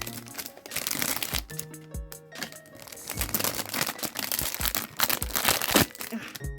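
Plastic wrapping crinkling and tearing as a small packaged item is unwrapped by hand.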